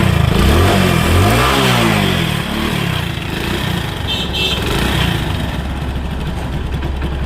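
Hero Splendor Plus single-cylinder four-stroke engine running through a newly fitted front exhaust bend pipe: revved once about a second in, the pitch rising and falling back, then idling steadily. The exhaust note is back to normal now that the broken bend pipe has been replaced.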